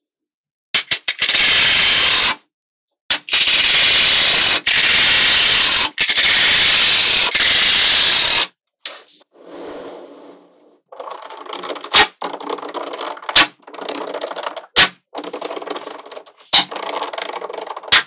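Small magnetic balls clattering and clicking in dense runs as rows of them are slid off a clear plastic sheet onto a grid of balls, for about the first eight seconds. After that, quieter rattling broken by several sharp single snaps as balls click together.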